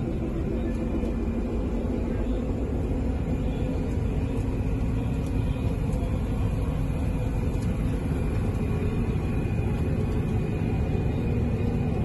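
Combine harvester running steadily while cutting wheat, heard from inside the cab: an even low rumble of engine and threshing machinery with a faint high whine.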